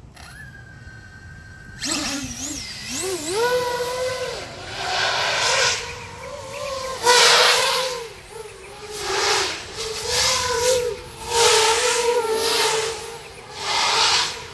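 X-Class FPV quadcopter's four Xnova 350Kv motors on 12S, spinning 13x12 props: a steady whine for the first two seconds, then a sudden spool-up for takeoff. After that the motors surge again and again, pitch rising and falling every second or two as the throttle is worked in flight.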